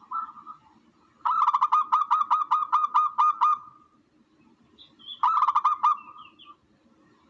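Recorded bird calls: a fast run of about ten harsh, evenly repeated notes, some four a second, then a shorter run about five seconds in, with a few thin high chirps around it.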